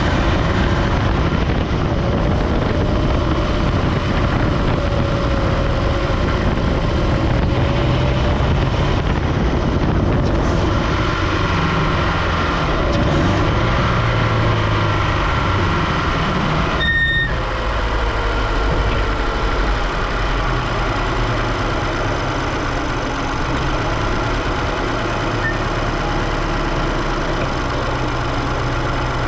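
Supercharged Scion FR-S's flat-four engine running steadily, its pitch drifting slightly. A brief beep sounds about seventeen seconds in.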